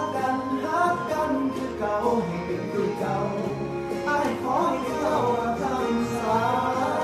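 Male voice singing a melody over backing music, the pitch wavering and bending in Thai-style vocal ornaments (luk kor).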